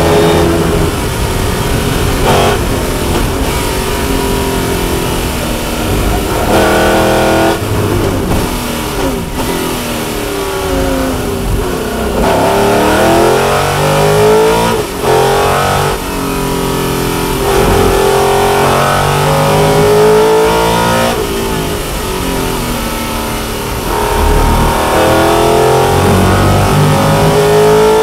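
Lola T70 Mk3B's Chevrolet V8, heard from inside the cockpit at racing speed. It comes off full power and slows through downshifts, then accelerates hard up through the gears, its pitch climbing and dropping back at each upshift several times.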